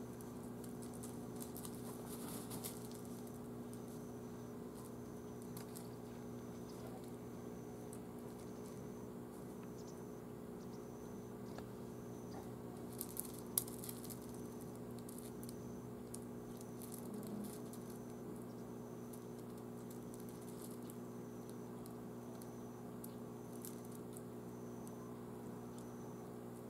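Faint scattered clicks and taps of carrion crows pecking and stepping on gravel, sharpest a little past the middle. Under them run a steady low hum and a faint high pulse repeating a bit more than once a second.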